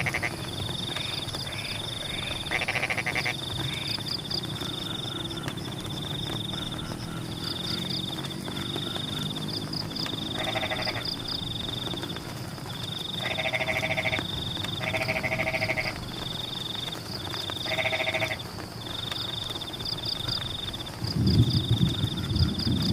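A chorus of rice-field frogs calling. A high, steady call repeats about once a second, and a louder pulsing croak comes in bouts of a second or two every few seconds. A low rumble comes in near the end.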